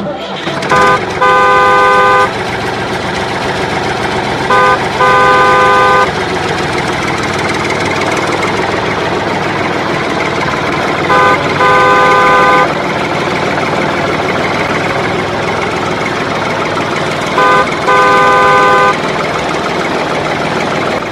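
A vehicle horn with several tones sounding together, honking a short toot then a longer one, four times at intervals of several seconds, over a steady engine and traffic noise.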